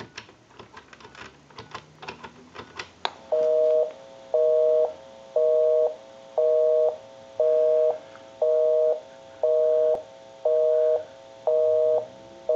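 A few light clicks from a push-button telephone keypad as a number is dialled. About three seconds in, a telephone busy signal starts: a two-tone beep pulsing on and off about once a second. It means the line being called is busy.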